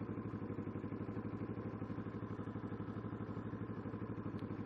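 Kawasaki Ninja 650R's parallel-twin engine idling with a steady, even pulse while the bike waits in a turn lane.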